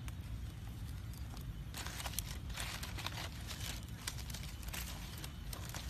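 Dry straw fire burning, with a dense run of crackles and rustling for a few seconds in the middle as more straw is pushed into the flames, over a steady low rumble.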